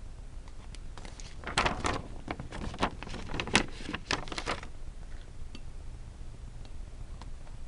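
Paper being handled and pressed down: a run of short rustles and light taps between about one and a half and four and a half seconds in.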